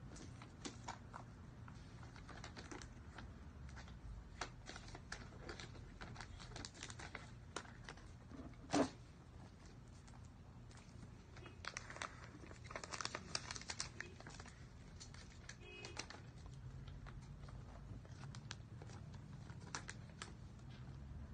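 Hands handling and unwrapping a new iPhone box: light taps, clicks and plastic crinkling. A single sharp knock comes about nine seconds in, and a longer stretch of crinkling follows a few seconds later.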